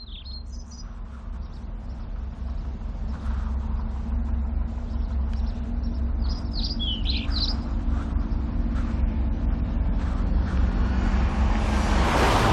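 Birds chirping over a steady low vehicle engine rumble that grows louder throughout, with a rush of noise swelling near the end as the vehicle draws close.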